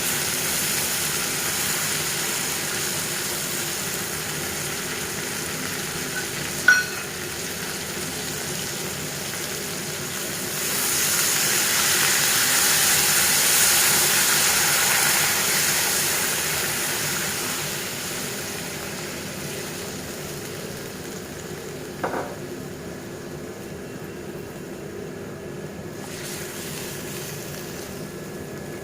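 Chicken curry sizzling in a pot, a steady hiss that swells for several seconds around the middle, with two short clinks, one near the first third and one past the middle.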